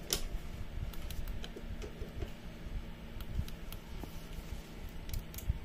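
Faint scattered clicks and rustles of nitrile-gloved hands handling a smart plug's circuit board and the test-lead clips, over a low steady hum.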